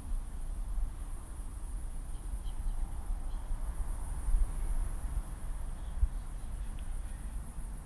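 Crickets chirring steadily in a high, shimmering band over a low rumble.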